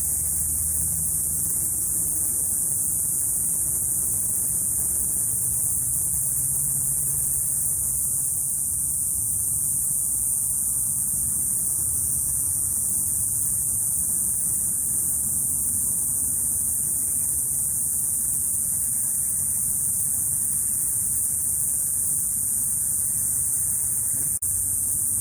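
Cicadas buzzing in the background: a steady, high-pitched, unbroken buzz, with a faint low hum beneath it.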